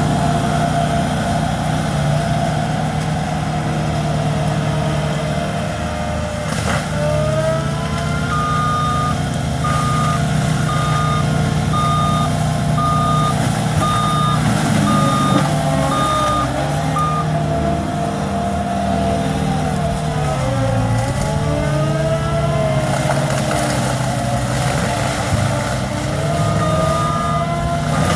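A CAT skid steer loader's diesel engine runs steadily, with a whine that slides up and down as the machine works. For part of the time its backup alarm beeps about once a second as it reverses. About two-thirds of the way through, the engine briefly drops in pitch and then recovers.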